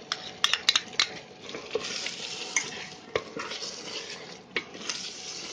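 Wooden spatula stirring cream into a thick, sizzling masala gravy in a pot, with several sharp knocks against the pot in the first second, then steady stirring and sizzling.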